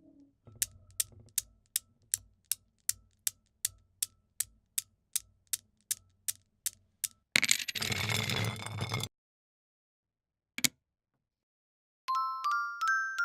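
A string of foley sound effects, opening with about seventeen sharp, evenly spaced ticks, nearly three a second, over a faint low hum. Next comes a noisy burst lasting about a second and a half, then a single click, and near the end a stepped run of bright ding-like notes rising in pitch.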